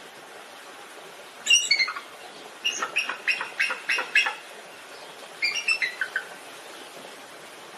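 Bald eagle calling: three bouts of high, thin chittering notes that step down in pitch, the middle one a quick run of about six notes. A faint steady hiss lies under the calls.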